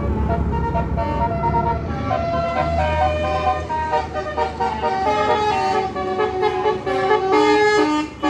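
Bus telolet basuri horn, a multi-tone musical horn, playing a tune of stepping notes. Under it is a low rumble that drops away about five seconds in.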